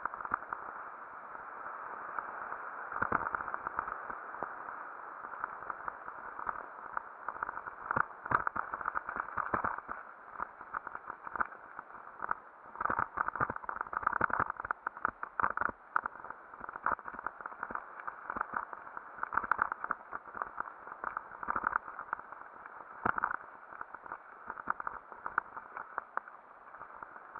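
Mountain bike riding fast down a dirt trail, heard from a helmet-mounted camera. A continuous muffled rolling and wind noise runs throughout, broken by many irregular clicks and rattling knocks as the bike goes over bumps.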